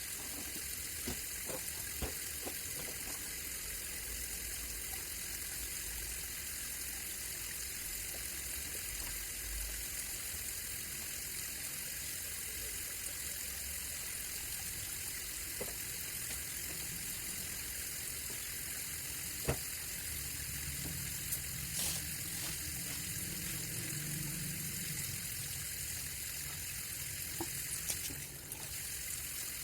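Running water making a steady hiss, with a few light knocks here and there.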